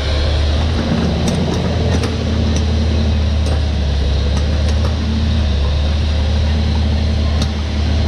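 John Deere 6506 tractor running steadily under load, pulling a slurry tanker and injector, heard as a constant low drone, with a few scattered sharp ticks and rattles from the tanker's machinery.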